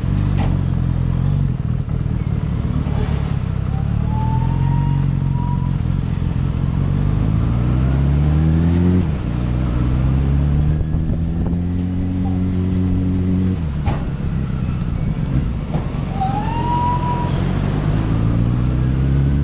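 Motorcycle engine heard from the rider's seat. Its pitch climbs slowly under throttle, drops sharply about nine seconds in and again near fourteen seconds, then climbs once more. A short, thin whistling tone sounds twice, about four seconds in and near the end.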